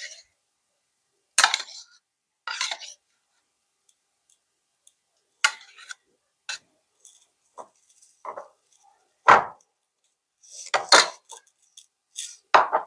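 Metal spoon clinking and scraping against bowls as spoonfuls of flaxseed gel are scooped and tipped in: about ten separate short taps with pauses between them, the loudest knock a little over nine seconds in.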